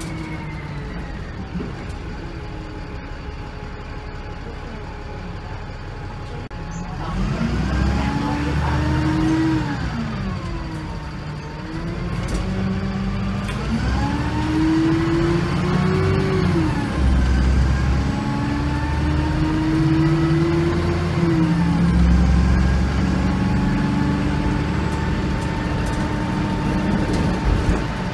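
VDL SB200 Wright Commander bus's rear-mounted diesel engine heard from inside the cabin. It runs quietly at first, then pulls away about a quarter of the way in. The engine note rises and drops back at three gear changes, then settles into a steady cruise.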